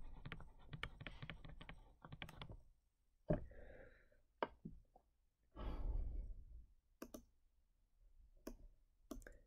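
Stylus tapping and clicking on a tablet screen during handwriting: a quick run of faint clicks over the first couple of seconds, then a few scattered single clicks. A soft breath about six seconds in.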